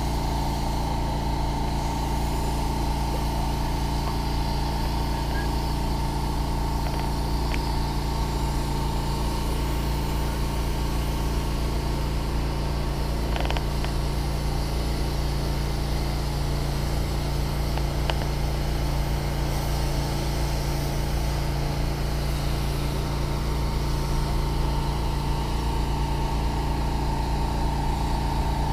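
Steady mechanical hum of motor-driven equipment running, made of several constant tones, with a few faint clicks.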